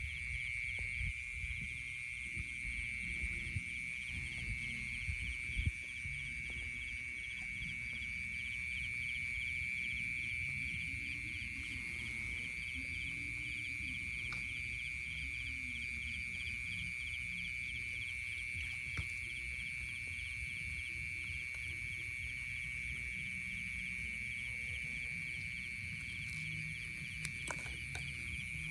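Night chorus of calling animals, a steady high drone with a fast, even pulsing, over a low uneven rumble; a few sharp clicks near the end.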